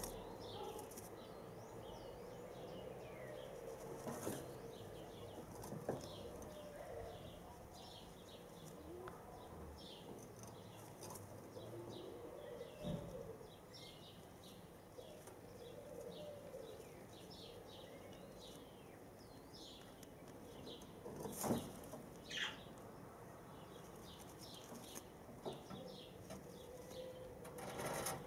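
Young white doves shuffling and flapping their wings in a cage, with a loud flurry of wingbeats about three quarters of the way through and another near the end. Many short, faint high chirps from small birds run underneath.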